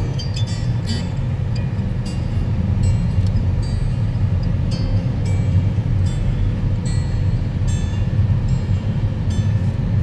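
Car cabin noise while driving slowly down a rough mountain road: a steady low rumble of engine and tyres, with scattered light clicks and rattles.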